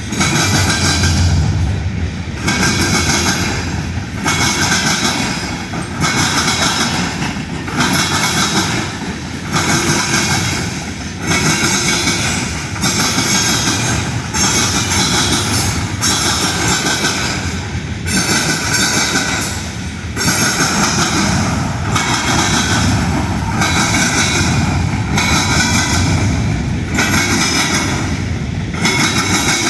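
Union Pacific train rolling past, its cars going by with a loud, steady rail noise that swells and dips in an even beat a little under every two seconds.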